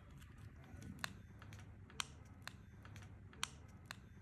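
Faint, sharp clicks, about five at irregular intervals, from the smartphone's inner plastic cover being pressed down by fingers and snapping into place. The loudest come about two and three and a half seconds in.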